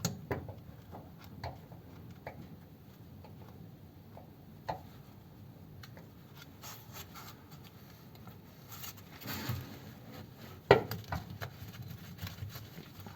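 Scattered small clicks and scrapes of pliers working stiff steel locking wire, twisting and trying to cut it, with one louder, sharp click late on.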